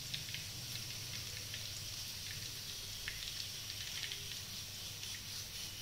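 Hot deep-frying oil in a steel wok sizzling with a steady hiss and scattered small crackles and pops, as a skimmer-load of freshly fried chicken pakodi drips oil back into it.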